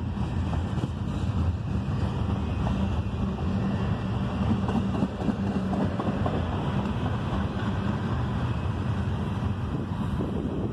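Double-stack intermodal container well cars rolling past, a steady rumble of steel wheels on the rails.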